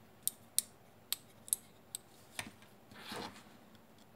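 Miniature rocker switches on a USB hub's circuit board clicked back and forth, about six sharp clicks roughly half a second apart, then a brief rustle of handling about three seconds in. The switches have loose contacts and no longer switch reliably.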